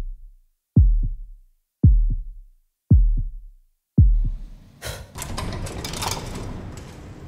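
Heartbeat sound effect: deep double thumps, lub-dub, about one a second, stopping after about four seconds. Then a noisy wash of city street sound with scattered clicks takes over.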